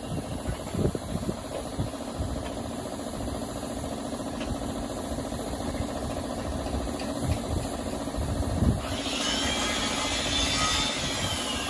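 A motor runs steadily with scattered low thumps. About nine seconds in, a high hiss of compressed air from a paint spray gun joins it.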